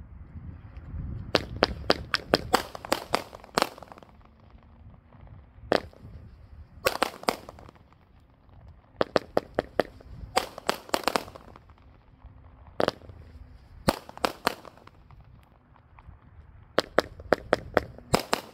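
Brothers Pyrotechnics Red White and Blue Salute 200-gram fireworks cake firing: sharp salute bangs in quick runs of several, each run a second or two apart, with a few single bangs between.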